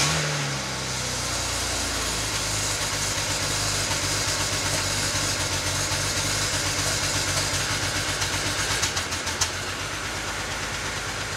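BMW N54 twin-turbo straight-six, just cold-started, with the revs flaring and dropping within the first second to a steady idle heard at the twin tailpipes. The idle is rough and sounds like it's misfiring, with a few sharp ticks about nine seconds in.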